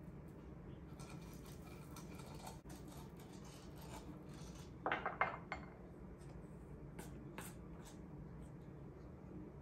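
Kitchen utensils clinking against bowls and a waffle iron as the iron's plates are greased and batter is scooped from a stainless steel bowl. A quick cluster of three or four clinks comes about five seconds in, with a few fainter ticks a couple of seconds later, over a steady low hum.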